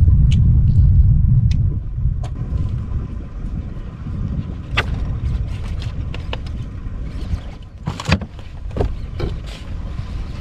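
Wind buffeting the microphone as a low rumble, loudest in the first two seconds, with scattered sharp clicks and knocks. The strongest knock comes about eight seconds in.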